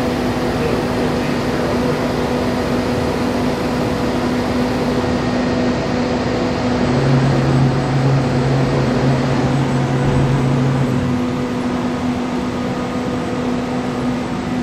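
Five-axis CNC router running a program on a dry run, not cutting: a steady hum from the spinning spindle, with a second, lower hum joining for about four seconds in the middle.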